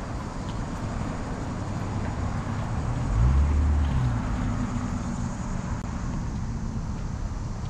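A car engine passes about three seconds in, its low rumble rising and then fading over the steady noise of an outdoor street.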